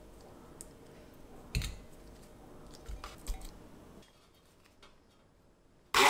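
Soft squishy handling and a few knocks as peeled mandarin segments sit in a glass measuring jug and a stick blender is set into it, the loudest knock about a second and a half in. Right at the end the stick blender switches on and runs loudly, starting to purée the mandarins.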